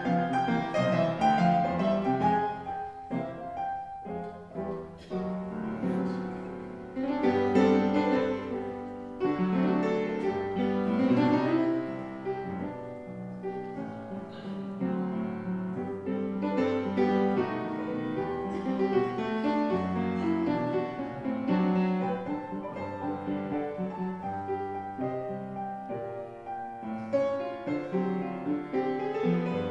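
Piano playing a ragtime and early-jazz style silent-film score, performed live.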